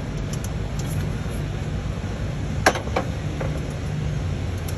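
Steady low hum with two sharp metallic clicks a third of a second apart about two and a half seconds in, then a fainter one. The clicks are a hand tool on the mounting bolts of a Detroit Diesel EGR valve actuator as the bolts are loosened.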